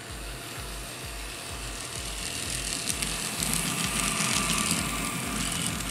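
N scale model train rolling past, its wheels clicking and rattling on the track. The noise grows as the cars pass close, loudest a little past halfway. Background music with a steady beat plays underneath.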